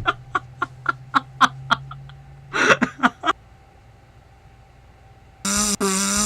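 A person making silly noises with the voice: a quick run of short snicker-like pulses, about four a second, then a louder burst near three seconds in. About five and a half seconds in, a loud, steady, pitched buzz starts, broken by short gaps.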